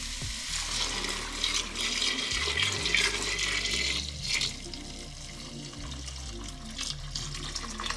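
Strained chicken broth pouring in a steady stream from a stainless steel bowl into a large stockpot. The pour is heaviest for about the first four seconds, then thins.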